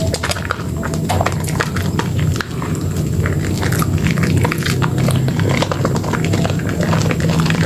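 Hands squeezing and kneading a soaked bar of Dermythol Green soap in thick lather: a continuous wet squishing with many quick, irregular crackles.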